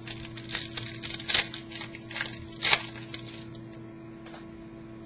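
Trading cards being handled and flipped through: a quick run of clicks and rustles of card stock, loudest twice in the first three seconds, then settling to a single tick, over a steady low electrical hum.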